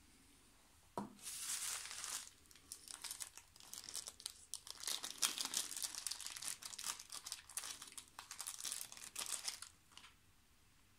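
Clear plastic wrapping crinkling and rustling in uneven bursts as hands unwrap a metal miniature from it. There is a light tap about a second in, and the rustling stops near the end.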